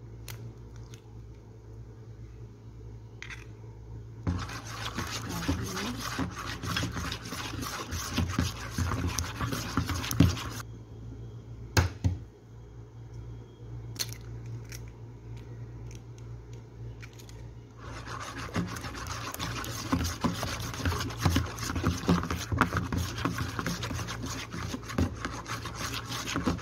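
A metal mixer beater stirred by hand through thick cake batter, scraping and clicking against the bowl in two long spells with a pause of several seconds between them.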